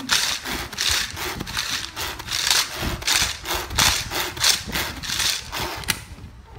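Pull-cord turbo food chopper being pulled over and over, about two pulls a second, each pull a whirring rattle of the spinning blades and cord as it chops fried peanuts, dried shrimp, onion and chillies in its plastic bowl; the pulling stops near the end.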